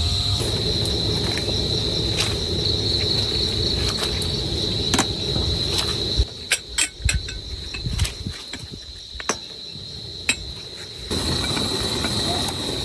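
A steady, high-pitched chorus of night insects, crickets by the sound of it, trilling without a break. Under it a low rushing noise drops away about six seconds in and comes back near the end, and a handful of sharp clicks or taps fall in between.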